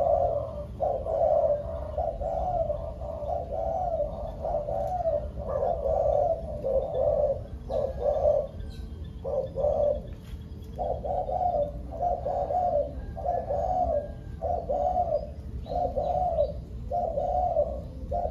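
Spotted doves cooing: a long run of short, low coos, a little over one a second, with a brief pause about ten seconds in.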